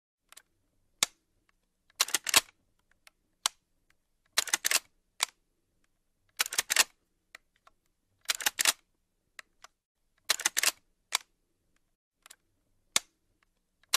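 Shotgun being loaded and made ready to fire: repeated sharp metallic clacks of the action, in short clusters of two to four about every two seconds, with single clicks between.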